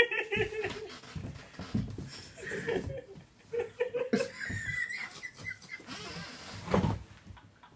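Two people laughing hard in uneven bursts, with wheezing and chuckling between them.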